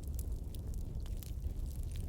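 Wood fire crackling: scattered sharp pops and snaps over a low steady rumble.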